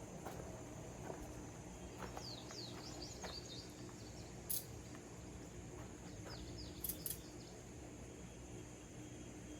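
Birds chirping in short, quick, falling calls, over a steady high hiss. A sharp click comes about four and a half seconds in, and two more close together about seven seconds in.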